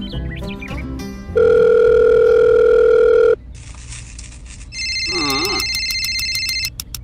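Background music gives way about a second in to a loud, steady electronic tone like a telephone dial tone, held for about two seconds and then cut off. A telephone-style electronic ring starts about five seconds in, with a short warbling sound at its start.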